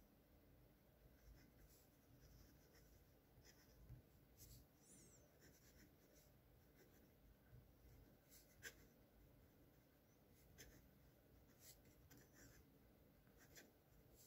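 Faint scratching of a Parker Sonnet fountain pen with a custom stub nib writing on grid paper, with scattered soft ticks.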